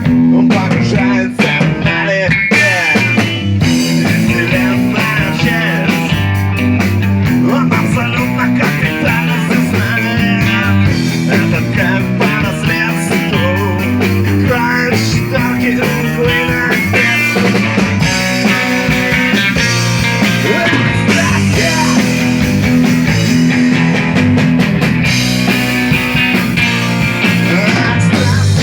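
Rock band playing a song, with guitar to the fore over a steady bass line.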